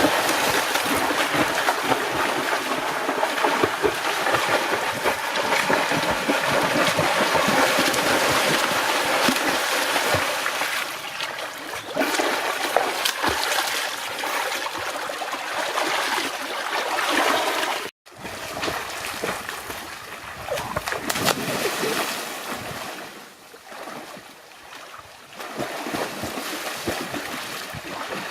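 Water splashing and sloshing, with small knocks throughout. It breaks off sharply about eighteen seconds in, then resumes quieter and more patchy.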